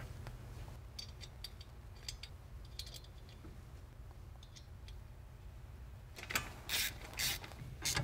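Faint light metal clicks of the brake caliper being handled, then near the end a ratchet wrench clicking in a few short strokes, snugging down the nut that holds the caliper on its bracket studs.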